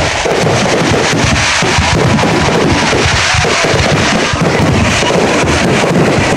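A continuous barrage of fireworks going off, many overlapping bangs and crackles every second.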